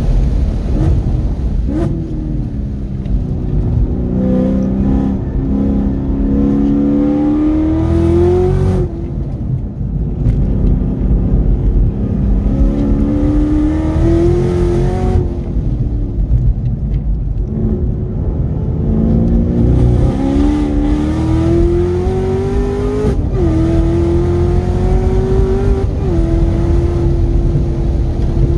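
Supercharged 6.2-litre V8 of a 2018 Chevrolet Camaro ZL1 1LE, heard inside the cabin during a hard track lap. The engine note climbs under acceleration several times, falls back and quietens when the driver lifts off to slow for corners, and drops sharply then climbs again at an upshift about three-quarters of the way through.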